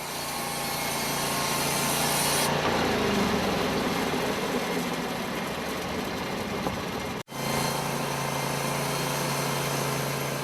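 Portable band sawmill running on its engine, a steady engine drone with the noise of the blade in wood. The sound shifts a few seconds in and breaks off abruptly at a cut about seven seconds in, then resumes the same.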